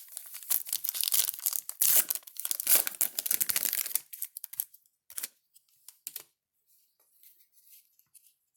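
Wrapper of a Topps jumbo pack of baseball cards being torn open and crinkled for about four seconds, then a few light clicks as the cards are handled.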